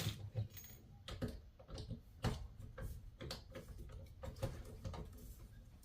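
Hand pop rivet gun being worked, a series of faint, irregular mechanical clicks as it is squeezed while setting an aluminum pop rivet.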